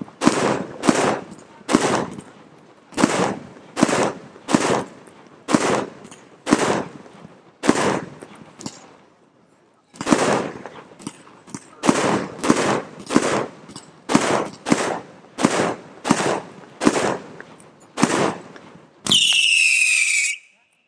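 A 268-shot ready-to-fire fireworks display firing a rapid string of shots, about two bangs a second, each with a short rumbling tail. The shots pause for about a second halfway through, then resume. Near the end comes a whistle lasting about a second and a half that falls slightly in pitch.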